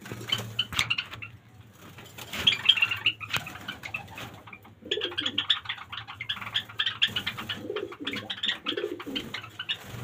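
A flock of Java sparrows calling: a steady chatter of many short, high chirps, with a few lower calls about five, eight and nine seconds in.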